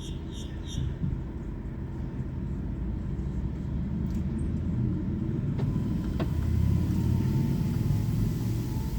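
Low rumble of a passing motor vehicle, swelling to its loudest about seven seconds in, with a faint drifting engine tone. A short run of quick high chirps sounds in the first second.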